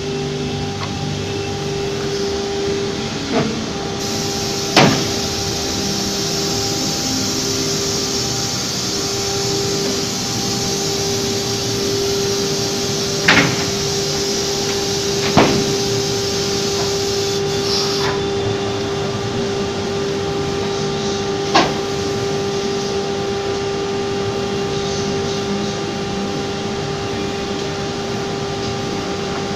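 Philicam automatic-tool-change CNC router running: a steady machine hum with one constant tone. A high hiss comes in about four seconds in and stops about halfway through, and five sharp clacks come at irregular intervals.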